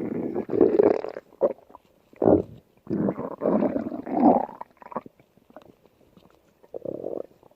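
Stomach growling and gurgling in uneven bouts: a long rumble at the start, a short one about two seconds in, a longer run from about three to five seconds, and a brief one near the end.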